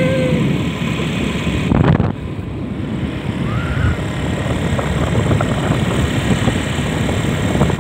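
Wind buffeting the microphone over the low running noise of a motorcycle riding along a road, with a louder gust about two seconds in.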